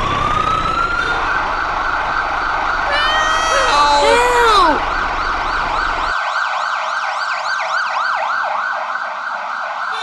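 Siren wailing: a tone that rises over the first second, then goes into a fast yelp of about four sweeps a second. A few falling glides cut across near the middle, and a low rumble underneath stops a little past the halfway point.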